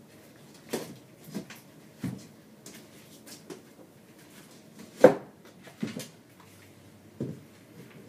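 Irregular knocks and clunks from hands working inside an under-sink kitchen cabinet. The loudest comes about five seconds in.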